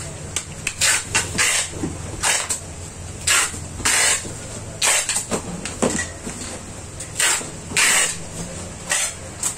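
Packing tape pulled off the roll in a dozen or so short, rasping rips at irregular intervals, sealing a box, over a steady low hum.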